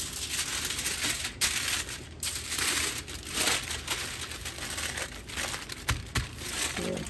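Aluminium foil crinkling and rustling as it is folded and pressed tightly around a rack of ribs, with a couple of soft knocks about six seconds in.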